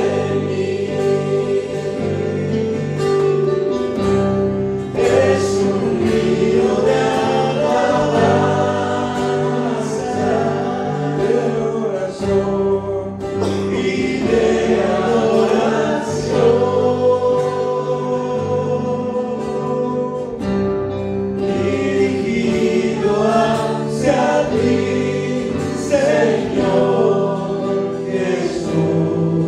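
Choir singing a Christian worship song with instrumental accompaniment and a steady bass line.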